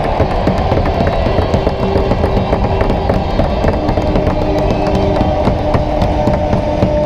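Goal celebration music played over an ice rink's PA system, with held notes, over a dense crowd din.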